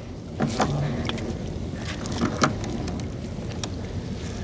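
Small river fishing boat running with a steady low drone, a short voice about half a second in, and a few sharp knocks.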